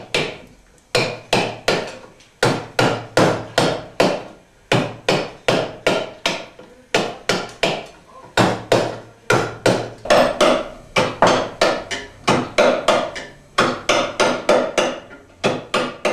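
Hammering: quick repeated blows, about three a second in uneven runs with short pauses, each ringing briefly.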